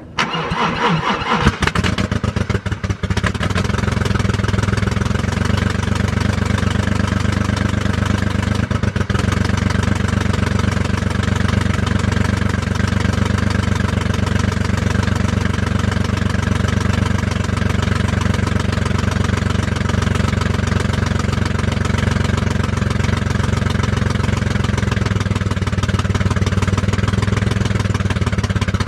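Car engine cranked by the starter and catching within the first two or three seconds, then running steadily with an even pulse. The owner suspects a vacuum leak behind its rough running.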